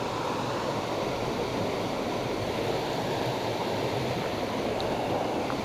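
Brook water rushing steadily.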